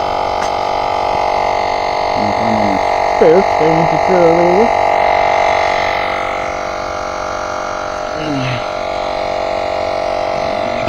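Portable battery-powered tire inflator running with a steady hum, pumping up an electric bike tire. Over it, a man's short wordless mouth sounds as he stands up, about two to four seconds in and again near eight seconds.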